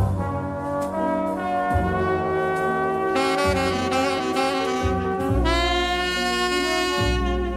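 Big-band easy-listening orchestra playing from a 1968 stereo LP: brass and saxophones hold chords over a bass line. Brighter high brass comes in about three seconds in, and a loud full chord with heavy bass swells up about five and a half seconds in.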